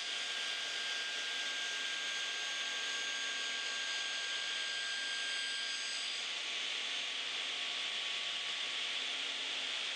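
Bäuerle cast-iron table saw running with its blade spinning free, not cutting: a steady whir and hiss. A faint whine in it drops out about six seconds in.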